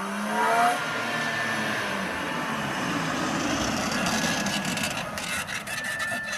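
A car driving across a dirt and gravel lot. The engine note rises in the first second, then tyre noise carries on steadily, with crunching and crackling from the gravel growing through the second half.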